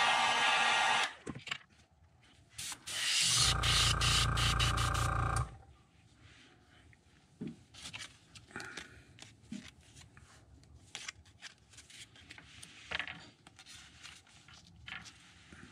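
Heat gun blowing hot air onto a freshly airbrushed crankbait, switching off about a second in. About two seconds later a lower-pitched motor hum runs for about two seconds and stops. After that there are only faint clicks and rubbing from handling the lure and a stencil.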